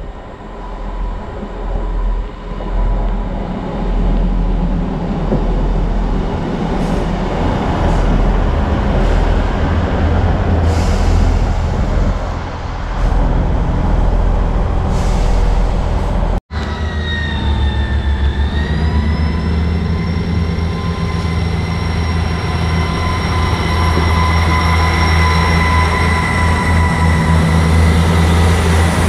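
ScotRail Class 158 diesel multiple unit running past close by, its diesel engines and wheels on the rails making a heavy rumble. Partway through the sound cuts, and the engines then rise in pitch into a steady whine as the train gathers speed.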